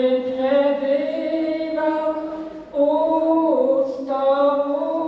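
An elderly man singing a Polish funeral hymn solo and unaccompanied, in slow, long-held notes, with a brief breath between phrases about halfway through.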